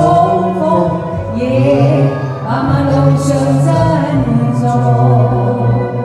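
A man and a woman singing a duet into handheld microphones over backing music, holding long notes.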